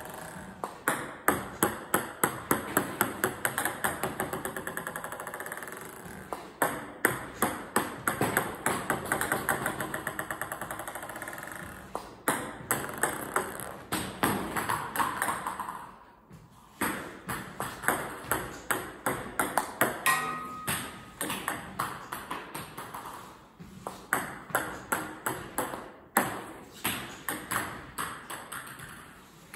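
Table tennis ball clicking off the table and bat in quick runs of sharp ticks during serve practice, several runs of a few seconds each with short pauses between.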